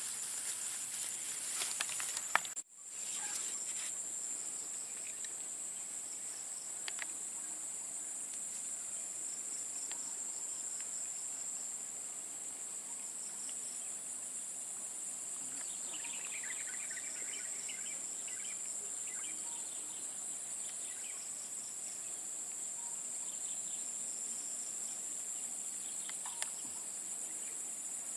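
Steady high-pitched chirring of insects, a cricket-like chorus that runs on without a break. A few small clicks of hand handling come in the first couple of seconds.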